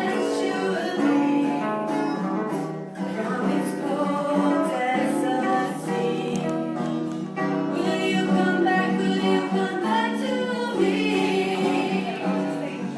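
Several voices singing a song together to a musical accompaniment, probably a guitar.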